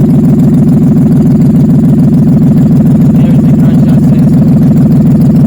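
Nissan Xterra engine idling steadily, an even low pulsing. It now runs after a crank-no-start, no-spark fault was fixed with a new camshaft sensor and a repaired crankshaft sensor connector.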